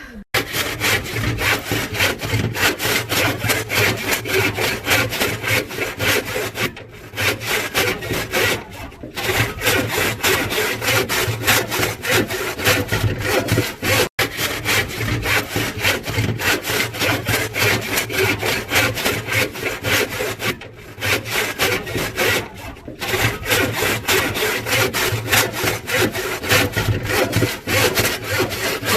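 A saw cutting through wood in steady, rapid strokes, stopping briefly a few times before carrying on.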